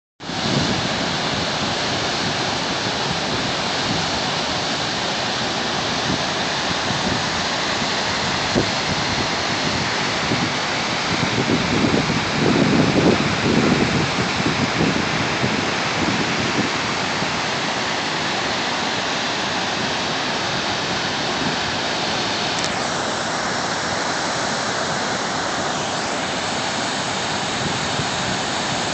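The Potomac River's Great Falls: a steady rush of whitewater pouring over the rock cascades and rapids, with a few seconds of louder low rumbling near the middle.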